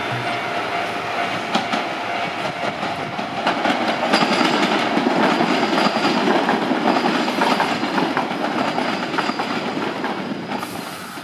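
Nose Electric Railway electric train running past on curved track, its wheels clicking over the rail joints. It builds to its loudest about halfway through and fades near the end.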